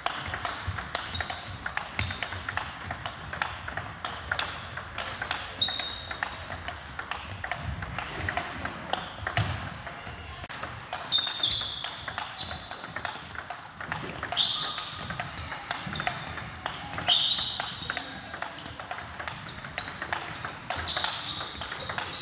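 Table tennis rally: the plastic ball clicking quickly back and forth off bats and table in a sports hall. In the second half there are occasional short, high squeaks of sports shoes on the hall floor.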